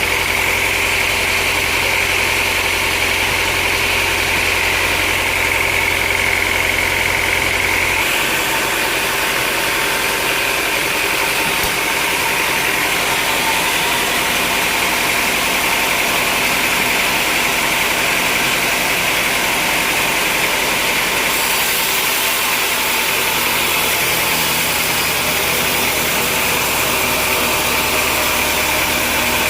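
Sawmill machinery running steadily with a constant high-pitched whine over a mechanical drone; the lower hum shifts about eight seconds in.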